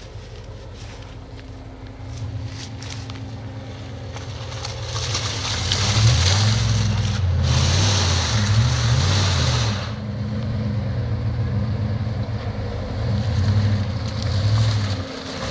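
Jeep Grand Cherokee 5.9's V8 engine revving hard again and again as it is driven through mud, the engine note rising and falling. A loud rushing noise, from spinning tyres and thrown mud, builds about five seconds in and drops away about ten seconds in.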